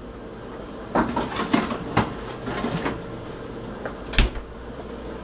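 Refrigerator door open while drinks are handled on its shelves: a run of short clinks and rattles, then one sharp knock about four seconds in, over a steady hum.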